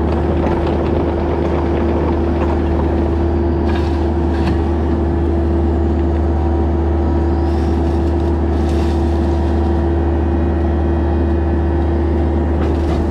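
Bobcat E26 mini excavator's diesel engine running at a steady working speed, heard from the operator's seat, with a constant low drone and a steady hum over it. A few faint brief noises come over it in the middle as the bucket works.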